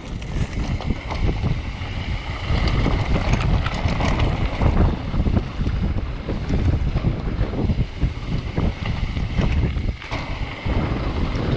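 Wind buffeting the microphone of a camera on a mountain bike descending a dirt singletrack, with the tyres rolling over the trail and frequent short knocks and rattles as the bike runs over bumps.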